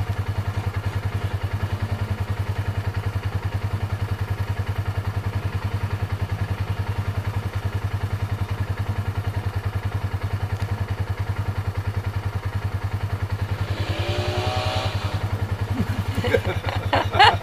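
ATV engines idling with a steady low, rapidly pulsing throb. About fourteen seconds in, one engine revs up in a rising whine as the quad churns through the mud puddle.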